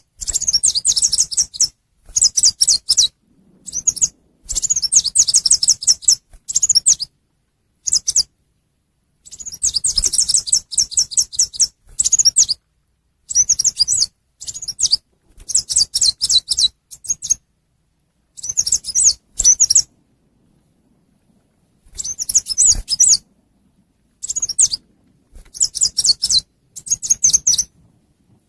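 Recorded call of a chim sâu xanh, a small flowerpecker, played as a lure: high, rapid twittering trills in short bursts, repeated over and over with brief silent gaps between them.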